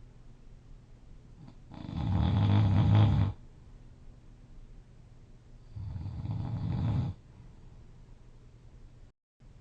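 A sleeping person snoring loudly: two long, rasping snores about four seconds apart, the first louder, with quiet pauses between them. The sound cuts out completely for a moment near the end.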